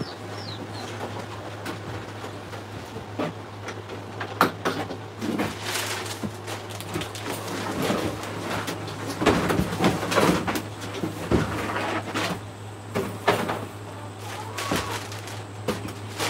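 Irregular knocks, clicks and rattles, some in quick clusters, over a steady low hum.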